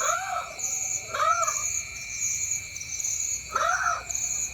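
An animal calling three times, each a short call rising and then falling in pitch, over a steady night chorus of crickets and other insects.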